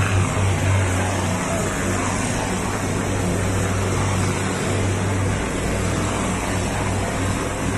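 Mortar spraying machine running: a steady hiss of air and mortar from the spray gun over a low motor hum. The hum eases about a second and a half in and comes back strongly about five seconds in.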